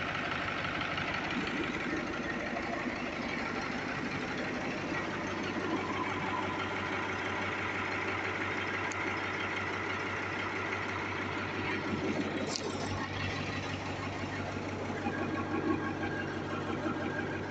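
Mertz 3250 floater's engine idling steadily.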